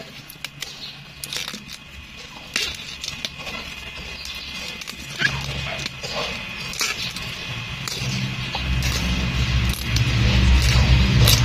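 Young bamboo offshoots snapped off a clump by hand, one after another, each break a short sharp snap, with rustling of the gathered stems. In the last few seconds a low engine rumble builds underneath.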